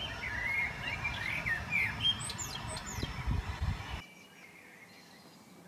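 Small songbirds singing: quick wavering chirps and a few high falling notes, over a low rumble on the microphone. Song and rumble stop abruptly about four seconds in.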